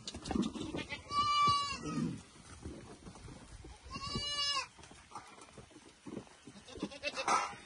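Young goat bleating twice: a long, high bleat about a second in and a shorter one about four seconds in.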